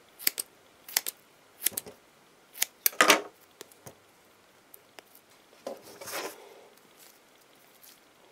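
Scissors snipping through a solid, silicone-like rubber squishy toy: several short, crunchy cuts in the first three seconds, the loudest a little after three seconds in, then a softer, longer rustle as the cut pieces are handled about six seconds in.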